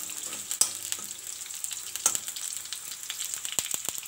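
Sliced onions sizzling steadily in hot oil in a kadhai as they fry toward light brown, with a few sharp clicks of a spatula against the pan, several close together near the end.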